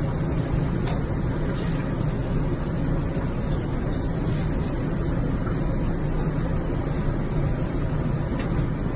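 Whirlpool bathtub jets running: a steady rush of churning water over a low motor hum.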